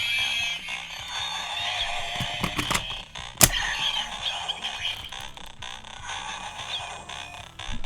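Electronic toy henshin belt playing synthesized music and sound effects through its small speaker. A few plastic clicks come about two and a half seconds in, and one sharp snap follows shortly after, as the Bugvisor is fitted to the Bugster Buckle.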